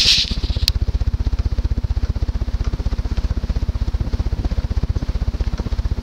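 Hampton Bay Patriot ceiling fan with a 188 mm vented Alaska spinner motor running on high, its blades beating the air in a steady rapid pulse of about a dozen beats a second. A short hiss and a sharp click come in the first second.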